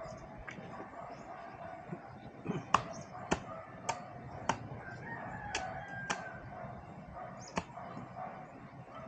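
Sharp knocks of a blade striking and splitting bamboo, a run of about seven roughly half a second apart from about three seconds in. A rooster crows in the background around the middle.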